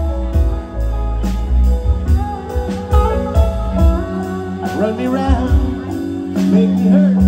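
Live band playing an electric set: pedal steel guitar, electric guitars, bass, drums and keyboard, with a steady bass line under regular drum hits and gliding melody lines coming in about halfway through.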